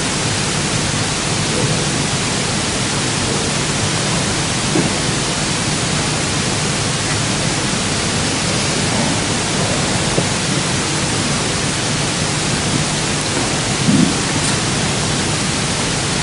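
Steady, even hiss of the recording's background noise, with faint short sounds about five and fourteen seconds in.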